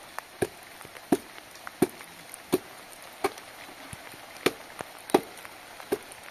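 A tool striking wood in a steady chopping rhythm: about nine sharp blows, one every 0.7 seconds or so.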